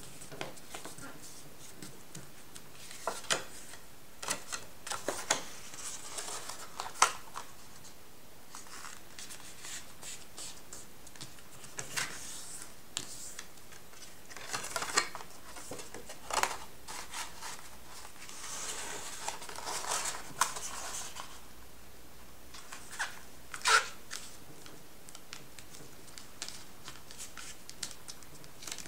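Stiff card and metallised paper being folded and creased by hand: irregular rustling and crinkling, broken by sharp crease snaps, the loudest about 7 seconds in and again near 24 seconds.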